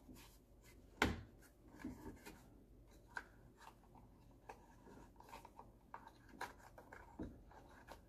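Faint clicks and rubbing of small parts being handled as the hatch latch's cable is seated in its groove, with one sharper click about a second in.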